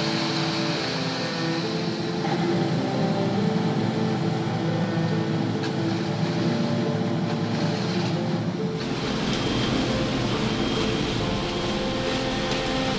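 Background music of held chords over the steady running of construction machinery; the machine noise underneath changes abruptly about nine seconds in.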